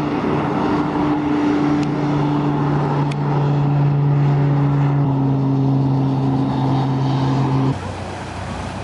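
Tour boat's engine running with a steady low drone, which cuts off abruptly near the end.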